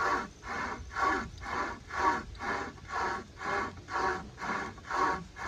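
Pocket chainsaw (a hand-pulled chain saw with handles) cutting through a log, drawn back and forth in rasping strokes about two a second, stopping just before the end.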